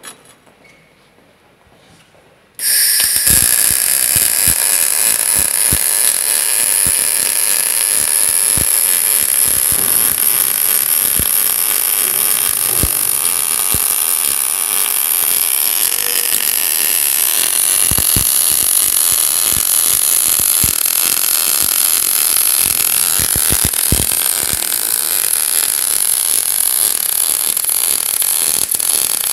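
MIG welding arc from a Merkle MobiMIG 180K running its ColdMIG short-circuit process on thin plate. The arc strikes suddenly about three seconds in, then runs as a steady, loud hiss with scattered crackles.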